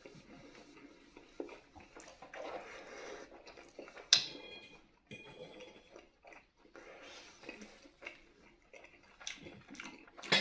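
A person chewing a mouthful of toasted lavash sandwich with egg and cheese, soft mouth sounds and small clicks. A sharp click with a brief ring about four seconds in.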